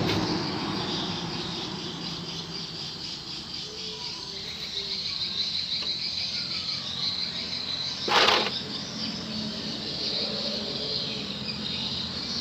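Insects, crickets or similar, chirring steadily in the background, with a brief loud scrape or clatter about eight seconds in.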